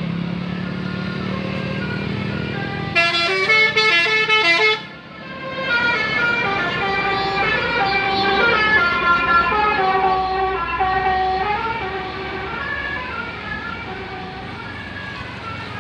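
Telolet basuri bus horn playing a melody of stepped notes, with a quick run about three seconds in and a longer tune after a short break. A bus engine hums low underneath at the start.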